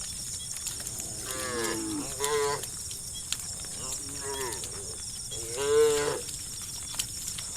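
Cattle mooing: about four separate calls from the herd, some drawn out with the pitch bending, the loudest near the end.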